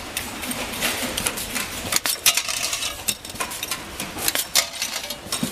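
Metal concealed cabinet hinges and loose hinge parts clinking and rattling as they are handled, an irregular run of sharp metallic clicks.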